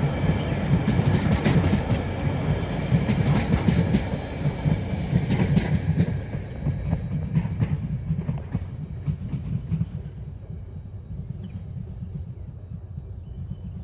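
Empty container flat wagons of a freight train rolling past with a heavy rumble and rapid wheel clicks, then fading away from about six seconds in as the end of the train moves off.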